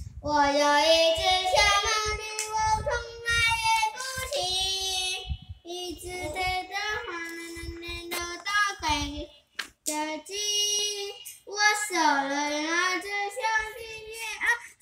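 A young girl singing a melody into a handheld karaoke microphone, with long held notes and short pauses between phrases.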